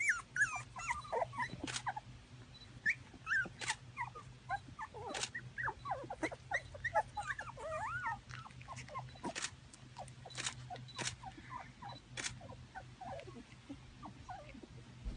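Dogs whimpering in many short, high, squeaky cries that bend up and down in pitch, with a few sharp clicks scattered through and a low steady hum underneath.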